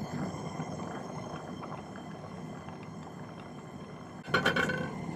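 Jeweller's soldering torch flame running steadily as it heats a sterling silver pendant piece on a soldering board to flow solder onto a small hinge tube. About four seconds in, a sudden sharp knock with a brief ringing tone.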